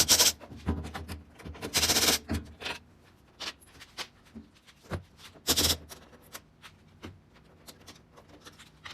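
Clicks, clatter and a few short harsh bursts of tools working on the screws and hex head nuts that hold a direct drive washing machine's faceplate.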